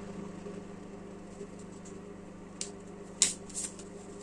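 Tarot cards being handled: a few short, sharp clicks and rustles in the second half, the loudest about three and a quarter seconds in, over a steady low hum.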